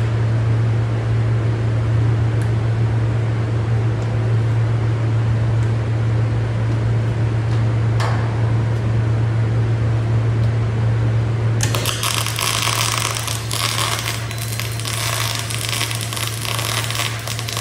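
A steady low hum, then, about twelve seconds in, a MIG (GMAW) welding arc strikes and runs with a continuous crackling sizzle while laying a single-pass weld on steel plate.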